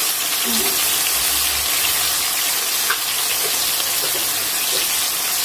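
Sliced onions and ginger-garlic paste frying in hot oil in an aluminium karahi: a steady sizzle with faint crackles.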